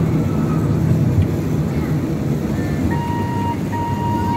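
Ride-on Christmas train running with a steady low rumble. A steady high tone comes in about three seconds in and is briefly broken.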